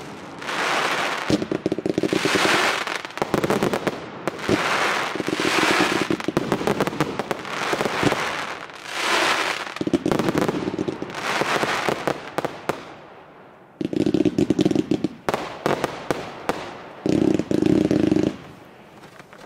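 Fireworks display: rapid bursts and crackling in swells about every two seconds, thinning out just past halfway, then two loud, dense volleys near the end.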